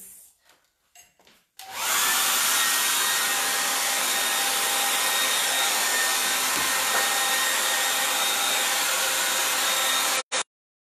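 Handheld hair dryer switched on about a second and a half in, running steadily: a rush of blown air with a faint high whine. The sound cuts out abruptly near the end.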